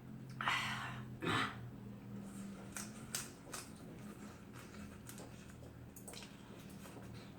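A person eating crab soup: two short slurps about half a second and a second in, then scattered small clicks and chewing sounds over a faint steady hum.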